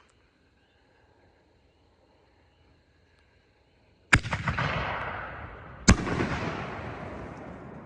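Artillery firework shell (Superior Fireworks SFX Titanium Willow) fired from its mortar tube: a sharp launch bang about four seconds in, then a fading hiss, and a second sharp bang under two seconds later as the shell bursts, trailing off in a long fading hiss.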